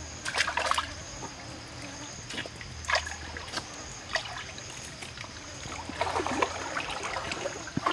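Hands splashing in shallow stream water, a few short splashes over steady trickling, with a longer stretch of splashing about six seconds in.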